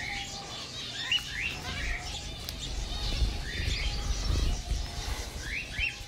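Zebra finches feeding from a hand, giving many short, scattered calls: quick rising chirps and nasal beeping notes at irregular intervals.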